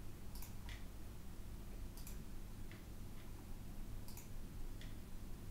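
A few faint, irregularly spaced computer mouse clicks over a low steady hum of room noise.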